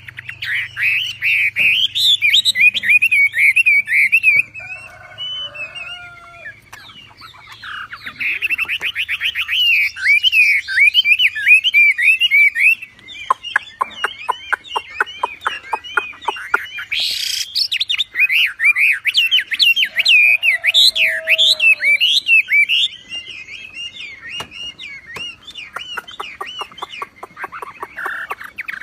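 Wambi songbird singing a loud, fast chattering song of rapid warbles and rattling trills, in long bursts with quieter lulls about five seconds in and again near the end.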